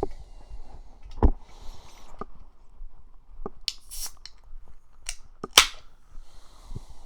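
Scattered close-miked clicks and knocks with a few short hisses, the sharpest knock about five and a half seconds in, picked up on a 3Dio binaural microphone.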